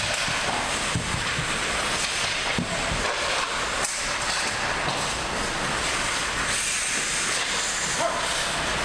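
Ice hockey play in a rink: a steady hiss of skate blades scraping and carving the ice, with a few faint knocks of sticks and puck.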